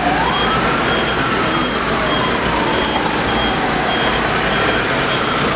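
City street traffic noise with an emergency-vehicle siren wailing: its pitch sweeps up just after the start, then falls slowly over about four seconds.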